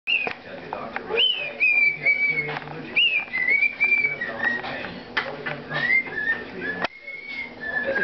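Cockatiel whistling a tune of repeated phrases, short clear notes that step down in pitch, several opening with a quick rise and fall.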